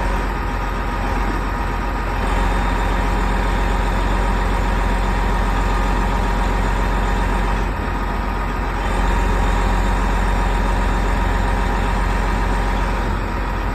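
Heavy tow-truck wreckers' diesel engines running under load while their booms and winches lift an overturned cement mixer truck, with a steady whine over the rumble. The engine note steps up about two seconds in, dips briefly past the middle and rises again.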